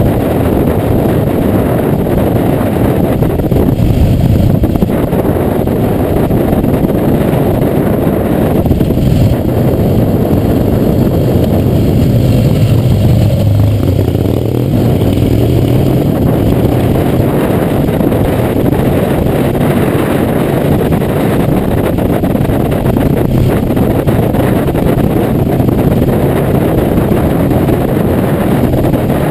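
Harley-Davidson V-twin motorcycle riding at road speed, heard from a fender-mounted camera: the engine runs under heavy wind noise on the microphone. A tone falls in pitch around the middle.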